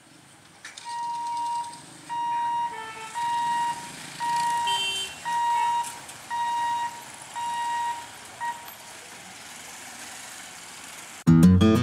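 Electronic warning beeper sounding about eight steady beeps, roughly one a second, over faint traffic noise, stopping after about eight seconds. Strummed acoustic guitar music starts loudly just before the end.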